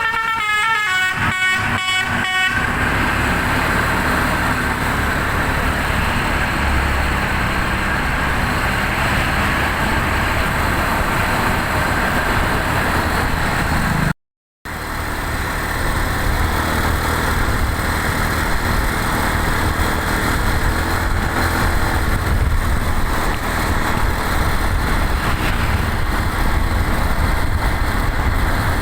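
A bus's telolet musical air horn plays a chord in quick short toots, about three a second, for the first couple of seconds. Then the bus's engine and road noise run on steadily, cut off for a moment about halfway.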